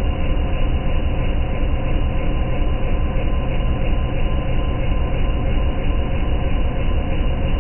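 Mazak CNC vertical milling machine cutting metal under flood coolant: a steady, loud machining noise from spindle, cutter and coolant spray, with a few steady tones held through it.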